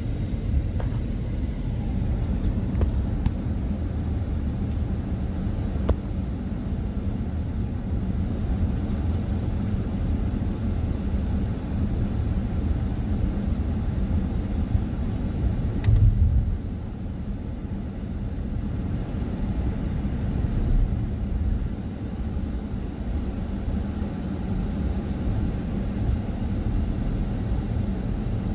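Steady low rumble of a motor vehicle on the road, with a brief louder knock about sixteen seconds in.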